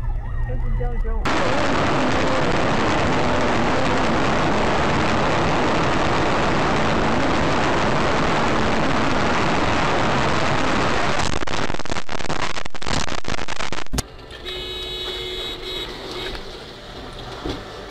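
A siren fades out at the start. Then a car's dashcam picks up a loud, steady rush of road and wind noise at highway speed, which cuts off suddenly about fourteen seconds in. Quieter noise with faint steady tones follows.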